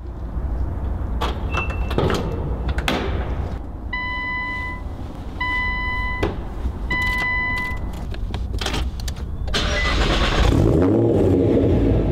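Car cabin sounds: a few sharp clicks, then three electronic warning chimes about a second and a half apart. About ten seconds in, the Nissan GT-R's twin-turbo V6 starts and revs, its pitch rising and falling.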